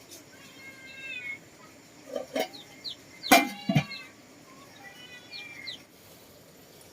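Farmyard animal calls: short high chirps and two drawn-out calls about a second in and again around five and a half seconds, with sharp knocks a little past two seconds and a cluster of louder knocks around three and a half seconds.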